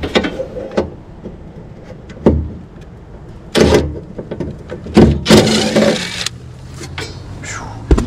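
Cordless drill-driver running in two short bursts, the second lasting about a second, as it backs out the screws holding a furnace draft inducer, with tool knocks and clicks between.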